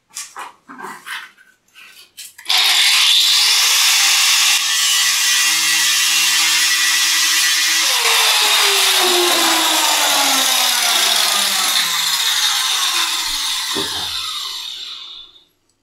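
A few handling clicks, then a hand-held power grinder starts about two and a half seconds in and runs steadily, grinding down the edge of a mixer trim's extension sleeve so that it sits flush. Its pitch sinks slowly in the second half, and it stops just before the end.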